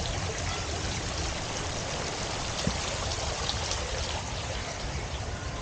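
Steady splashing of water from a tiered stone fountain, falling from its bowls into the basin below.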